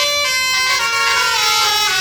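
A bus's basuri musical air horn playing a tune, sustained horn notes stepping down in pitch one after another.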